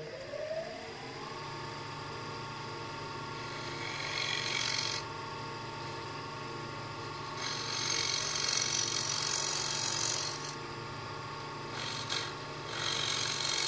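Wood lathe motor spinning up with a rising whine over the first second, then running steady while a standard scraper with a freshly ground burr takes light cuts across the spinning side-grain blank. The scraper gives a dry scraping hiss in three stretches: about four seconds in, from about seven to ten seconds, and again near the end.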